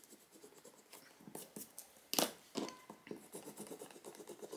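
Faint scratching and rubbing of friction-erasable gel pens on a small square of grid sticky-note paper, with two sharp clicks a little past halfway.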